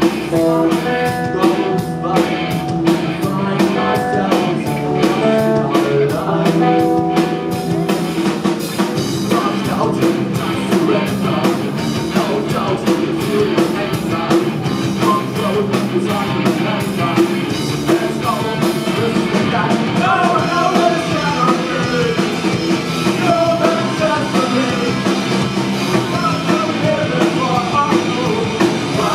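Live rock band playing at full volume: drums on a Ludwig kit, electric bass and electric guitars. A voice sings over the band in the second half.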